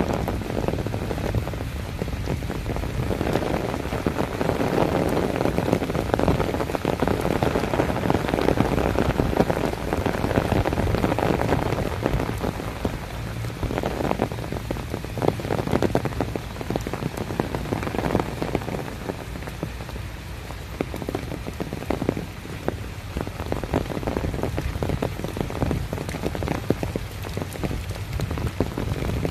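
Heavy tropical rain pattering steadily on an umbrella held overhead and on the grass and paddy water around it, a dense hiss of countless drops. It is heaviest in the first half and eases slightly after.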